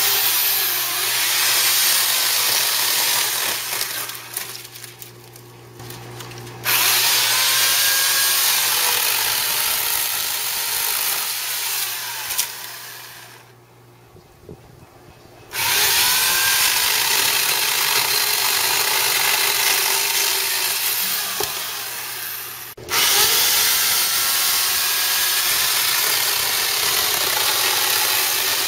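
Electric chainsaw running and cutting into a dead peach tree's trunk, in long bursts of steady motor whine and cutting noise. The noise eases a few seconds in, comes back loud, stops for about two seconds near the middle, then runs on with one brief break.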